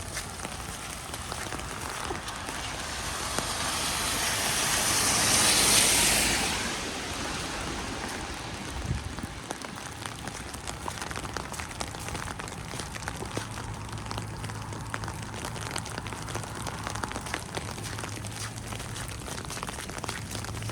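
Wet snow and rain pattering steadily with fine crackling drips. About six seconds in, a vehicle passes on the wet road, and its tyre hiss swells and fades.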